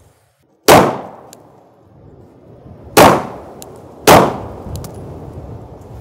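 Three pistol shots of slow, aimed fire. The first comes under a second in, then two more about two seconds later, just over a second apart, each trailing off in a short echo.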